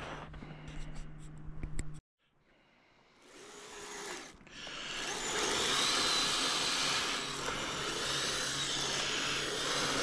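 Footsteps crunching in snow for the first two seconds, then a short gap of silence. From about three seconds in, a Kyosho Blizzard RC snowcat's electric drive whines, rising and then holding steady as its tracks run across the snow.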